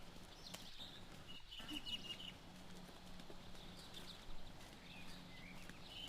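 A faint, steady low hum of unknown origin, heard from the sky, that drops out briefly about a second and a half in. High chirps come and go above it.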